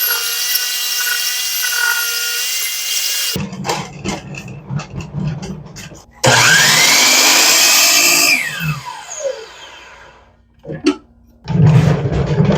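Power saw cutting wood in several short bursts. About six seconds in, the motor spins up and runs loud, then winds down with a falling whine.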